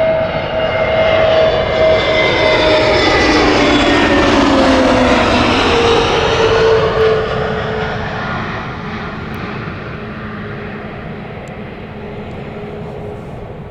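Airbus A380's four jet engines at takeoff power during climb-out. The engine tones fall in pitch as the aircraft passes by in the first half, then the roar slowly fades as it flies away.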